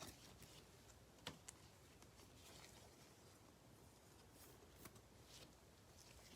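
Faint handling of trading cards: soft rustles of cards sliding into plastic sleeves, with a few light clicks and taps.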